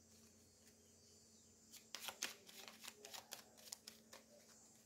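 A deck of Lenormand cards shuffled by hand: faint, irregular light clicks of the cards, starting a little under two seconds in.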